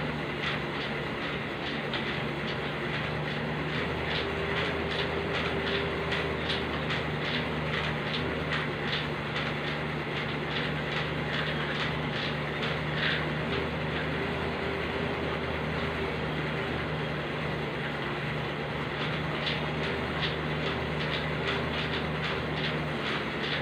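Elliptical cross trainer in use: its linkages tick rhythmically, a few times a second, with each stride, over a steady hum.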